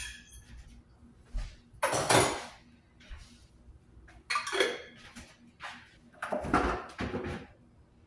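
A metal fork clinks against a glass jar of pickled cactus, the jar ringing briefly. This is followed by a few short scraping and rustling noises.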